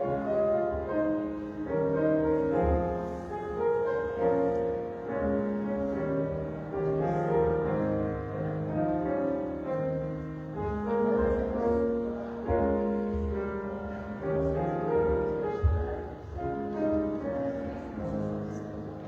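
Slow instrumental piano music: chords held and changing every second or so, growing softer near the end.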